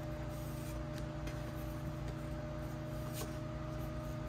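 Room tone: a steady low hum with a faint held tone, and a few faint ticks, about one and three seconds in.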